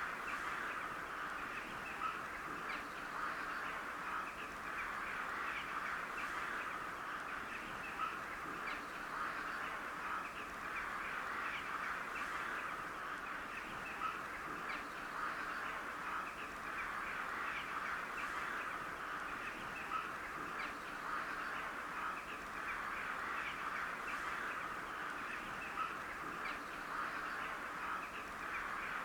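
A flock of crows calling together: many overlapping caws merge into a steady, unbroken chatter.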